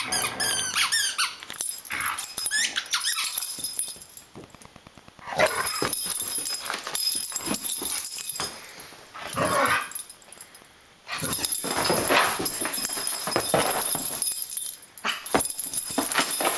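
Greyhound squealing and whining in excited play, with quick high squeals in the first few seconds, followed by long rough scratching and rustling stretches as it paws and roots in its fleece bed.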